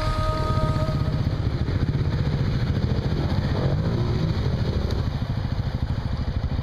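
Off-road vehicle engine idling steadily with an even low pulse.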